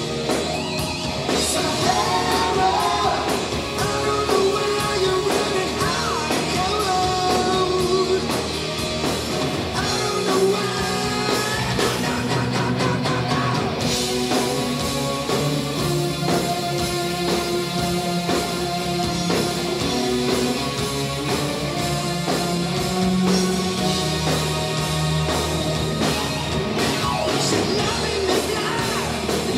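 Live hard rock band playing: male lead vocals over electric guitar, bass, drums and keyboards, loud and continuous throughout.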